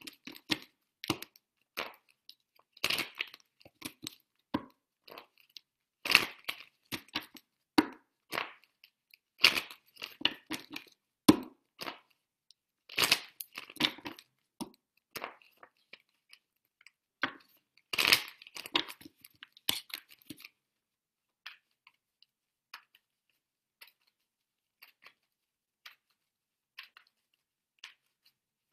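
Affirmation cards being shuffled and handled close to the microphone: irregular crisp clicks and rustles that thin out to faint occasional ticks after about twenty seconds.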